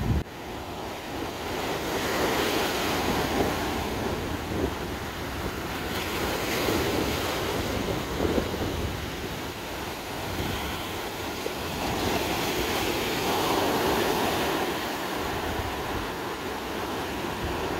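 Ocean surf breaking and washing up a sandy beach, an even rushing that swells and eases as each wave comes in.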